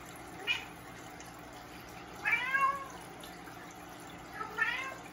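Three short pitched animal calls, each rising then falling in pitch, the middle one the longest, over a steady faint background hiss.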